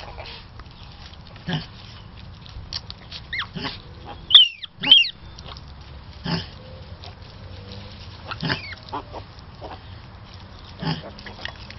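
Miniature potbelly pigs at a nursing sow: short low grunts every couple of seconds, and two loud, high, gliding squeals about four and five seconds in as the piglets jostle at the teats.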